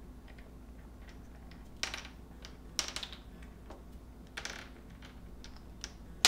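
Scattered sharp clicks and taps of hard plastic as an African grey parrot works at a water bottle with its beak, a few at a time with short gaps, the loudest one at the very end.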